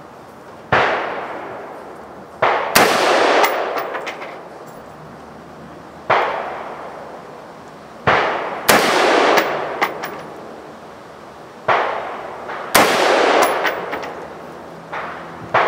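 Single shots from a Colt AR-15 A2 rifle firing 5.56 NATO rounds: about nine sharp reports at irregular intervals, some louder than others, each ringing out in a long echo.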